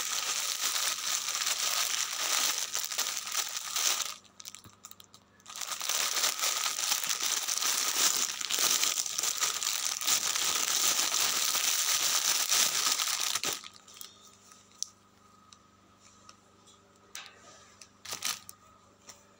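Thin plastic courier wrapping crinkling and tearing as it is pulled open by hand, in two long stretches with a short break about four seconds in. After about thirteen seconds it drops to faint rustling with a few light clicks.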